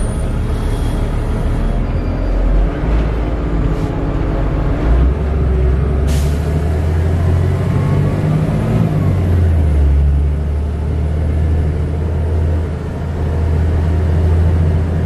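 Denning Phoenix low-floor bus heard from inside the passenger cabin while driving: a low engine drone that steps up and down in pitch a few times, with one short sharp hiss about six seconds in.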